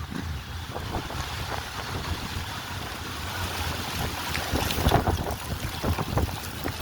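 Strong gusty wind buffeting the microphone: a low rumble that surges and crackles irregularly.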